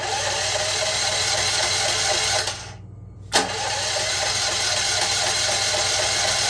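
Electric starter cranking a Champion 4,000-watt portable generator's engine in two attempts of about three seconds each, each opening with a click, with a short pause between. The engine turns over but never catches: a no-start.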